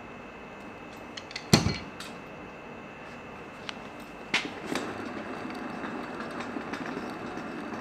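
Steel pliers clicking on a cotter pin at the hand truck's axle, with one sharp metal clank about one and a half seconds in. A little after four seconds a hand pushes the new HAUL-MASTER 10-inch flat-free wheel and it spins freely on its bearings with a steady low whir.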